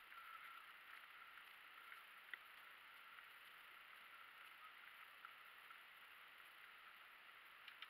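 Near silence: a faint steady hiss with a few faint clicks.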